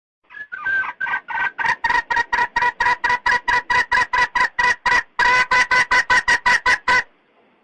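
Red junglefowl hen calling the rooster: a fast, even run of short clucks, about six a second, with a brief break about five seconds in.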